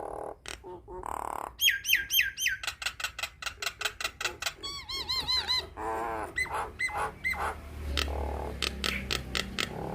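Nias hill myna calling: a varied run of sharp clicks, loud whistles that bend up and down, and quick repeated arching notes.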